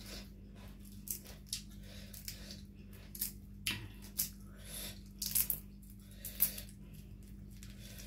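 Cooked prawn shell crackling and snapping in irregular sharp clicks as it is peeled by hand, over a steady low hum.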